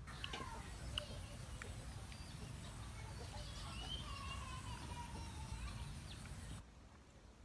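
Faint outdoor ambience: scattered bird chirps and a few sharp clicks over a low rumble. The whole sound drops abruptly quieter a little before the end.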